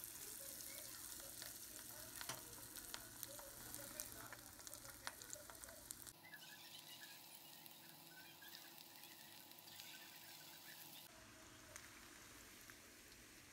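Battered chicken pieces deep-frying in hot oil: a steady sizzle with frequent sharp crackles, busiest in the first half.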